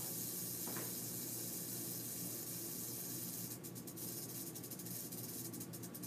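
Baby rattlesnake buzzing its rattle: a steady high buzz that, about three and a half seconds in, breaks into a fast stutter of short bursts.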